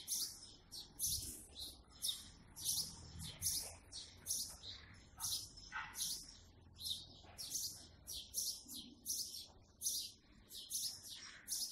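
Small birds chirping in quick, high-pitched, repeated notes, about two to three a second.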